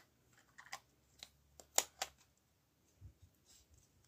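Hard plastic clicks and taps as an action camera is handled and fitted into its clear waterproof housing: a scattered handful of short clicks, the sharpest a little under two seconds in.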